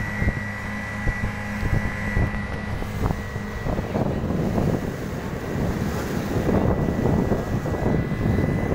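Motorboat engine running under way, with wind buffeting the microphone. About four seconds in, the rush of wind and water grows louder.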